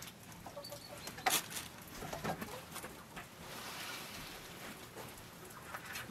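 Split firewood sticks knocking and clattering as they are laid by hand between bricks to build a fire: a few sharp wooden knocks, the loudest about a second in.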